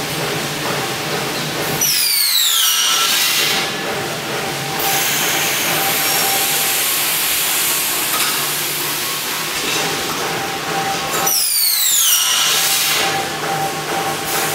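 Automatic double-head aluminium profile cutting saw working through its cutting cycle. Twice, about nine seconds apart, a high whine falls steeply in pitch over a second or two. Between them the machine gives a steady hum and hiss.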